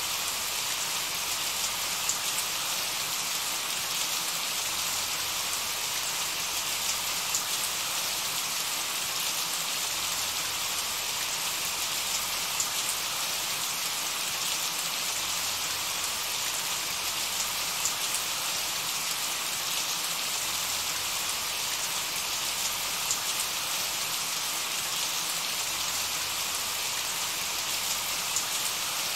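Steady rain: an even hiss with small scattered drop ticks.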